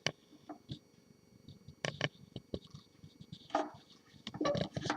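Scattered clicks and knocks of a wooden typewriter carrying case being handled, with a few short sharp taps about two seconds in.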